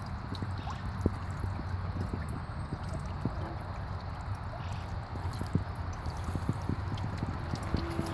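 Water trickling and dripping in a small homemade pump-fed fountain, with many scattered drips over a steady splashing trickle and a steady low hum.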